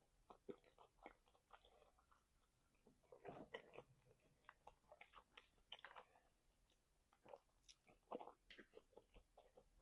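Faint, close-miked chewing: a run of small mouth clicks coming in irregular clusters.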